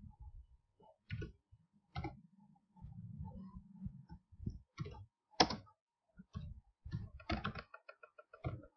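Computer keyboard being typed on: irregular key clicks with pauses, one key struck much harder about five and a half seconds in.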